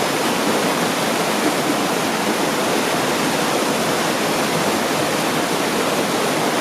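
Steady rush of falling water, like a waterfall, even and unbroken.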